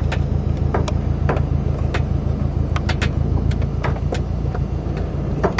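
Car engine idling, heard inside the cabin as a steady low hum. About a dozen sharp ticks are scattered irregularly over it.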